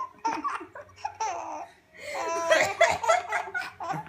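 Baby laughing in a run of short, high-pitched laughs, with a brief lull near halfway before a denser burst of laughter.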